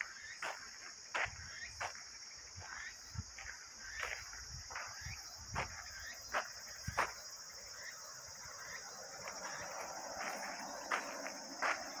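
Footsteps on a dirt forest path, about one step every 0.7 seconds, pausing briefly after about seven seconds. Behind them a steady high-pitched insect chorus keeps up throughout.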